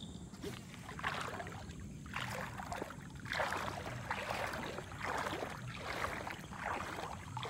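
A lure being worked back through shallow floodwater on a baitcasting rod: a series of soft splashing swishes, roughly one a second.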